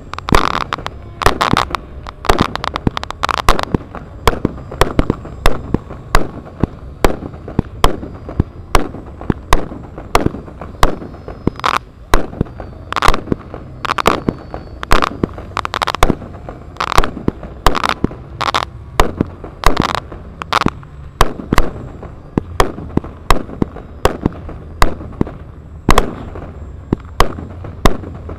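A continuous barrage of pyrotechnic bangs, like firecrackers, set off to stage a mock battle. They come irregularly, two or three sharp cracks a second, over a steady low rumble.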